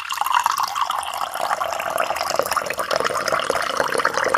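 Water pouring steadily from a plastic water jug into a glass tumbler, filling it.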